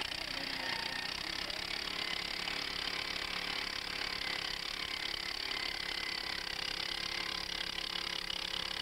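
Engine of a two-man gas-powered earth auger running steadily under load as the bit bores into the ground.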